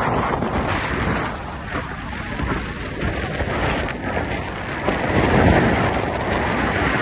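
Wind buffeting the microphone over steady road and traffic noise from moving vehicles, swelling louder about five seconds in.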